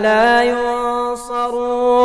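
A solo voice chanting an Arabic prayer in a melodic recitation style, drawing out one long, steady note.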